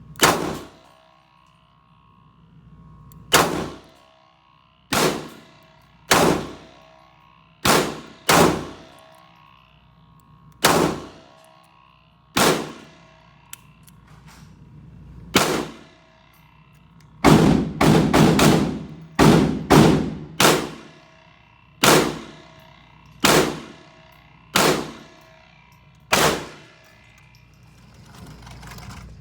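Gunshots at a shooting range: about seventeen shots at irregular spacing, with a quick run of four shots a little past the middle, each shot followed by a ringing echo.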